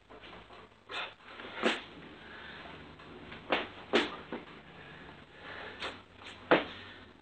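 Hands and feet thumping and slapping on the floor during burpee jacks: about eight sharp, irregularly spaced impacts over a faint low hum.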